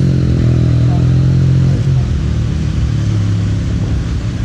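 Motorcycle engine idling steadily and loudly, its note dropping slightly about two seconds in.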